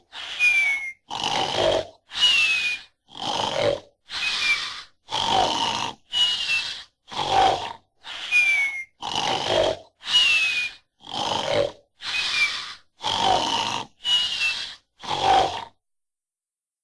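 Warner Bros. snoring sound effect: a quick run of short snores, snorting inhales alternating with falling whistles, about one a second, stopping shortly before the end.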